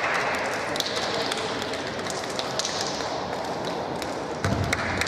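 Scattered sharp slaps of hands as a line of players high-five each other, over a steady din echoing in a large sports hall. A dull thud sounds near the end.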